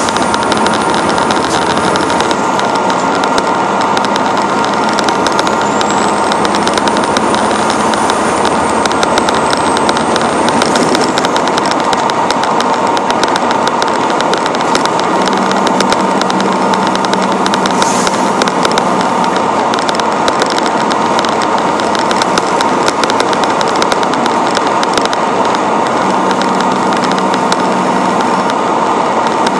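Western Star quad-axle tipper truck on the move: a steady, loud rush of engine and wind noise picked up on the cab roof. A faint high whistle rises and then holds for a few seconds near the start.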